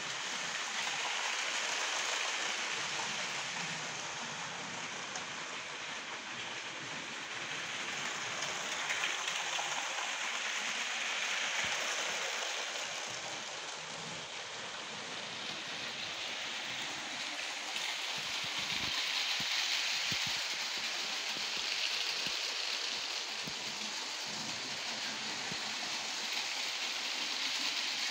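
Battery-powered Lego trains running on plastic track: a steady whirring rattle of small motors and plastic wheels over track joints that swells and fades several times as trains pass near.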